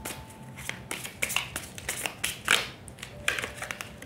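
Tarot cards being handled while one is drawn from the deck: a scatter of soft clicks and paper rustles, a few louder about a second in and about two and a half seconds in.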